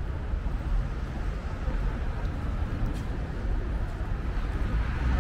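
City street ambience: a steady low rumble of passing traffic.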